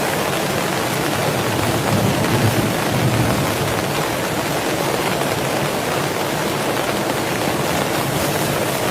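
Heavy rain falling, a steady dense hiss that swells slightly about two to three seconds in.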